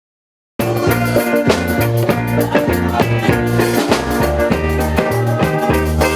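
Silence for about half a second, then band music with drums, bass and guitar starts abruptly and plays with a steady beat.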